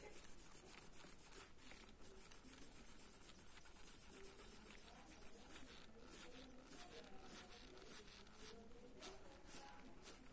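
Faint scratching of a mechanical pencil's graphite lead on paper in short, repeated shading strokes, about two a second, clearer in the second half.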